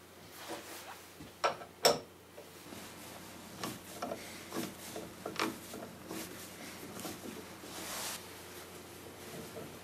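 Four-jaw chuck of a CNC rotary indexer being tightened onto a square wooden blank with a T-handle chuck key: two sharp metal knocks just under two seconds in, then scattered light clicks and scrapes.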